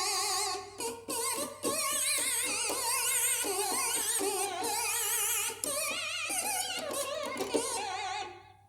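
Nord Stage 3 stage keyboard playing a chordal melody on a patch with heavy vibrato, close to a singing voice. The notes stop and fade out about 8 seconds in.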